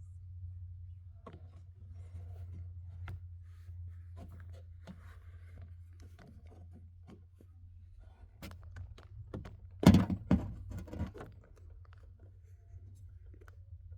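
Handling noise: scattered light clicks and rustling, then a quick run of loud knocks and clatter about ten seconds in, over a steady low hum.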